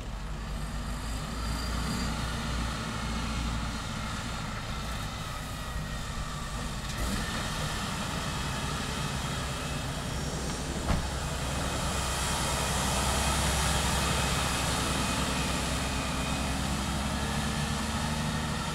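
Snowplough truck's engine running steadily as it drives through, growing louder to a peak about two-thirds of the way through and then easing off, with one short click partway.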